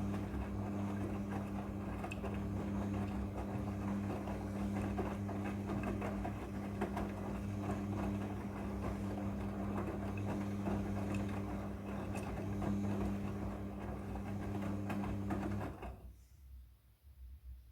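Front-loading washing machine running: a steady motor hum with scattered small clicks as the drum turns, which stops suddenly near the end.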